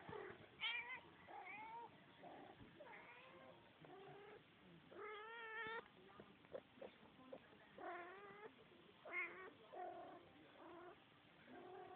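Kittens mewing repeatedly, about ten short high calls with a wavering pitch, the longest drawn out for nearly a second about five seconds in.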